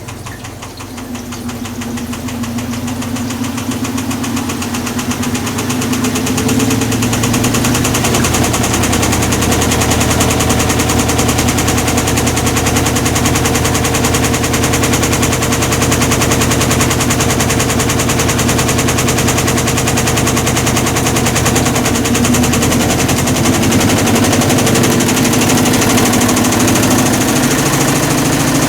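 Hitachi Beat Wash BW-D8KV washing machine running with a loud, rapid grinding rattle, building over the first several seconds and then steady: the noise of a failed clutch, which the owner puts down to overloading the drum.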